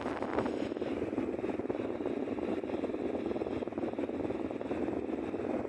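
Steady whirring, rushing noise: a sound effect under an animated logo end card, fading out at the very end.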